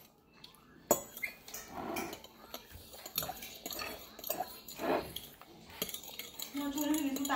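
Metal fork clinking and scraping against a bowl while noodles are eaten, with a few sharp clinks spread through. A child's voice is heard briefly near the end.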